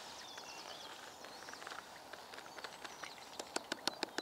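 A quick irregular run of small sharp clicks, several a second, starting about three and a half seconds in, as a few feed pellets are tapped into the swim. Birds chirp earlier on.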